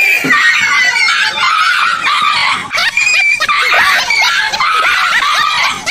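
Several voices screaming and shrieking at once, high-pitched and continuous, with no clear words.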